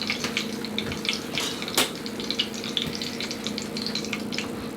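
Hot deep-frying oil crackling and sizzling in small irregular pops, over a steady hum. One sharp click a little under two seconds in.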